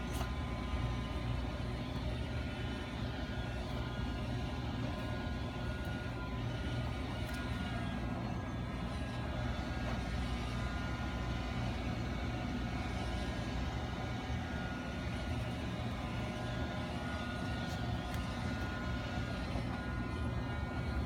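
Steady low mechanical hum with a few faint, steady whining tones over it, unchanging throughout.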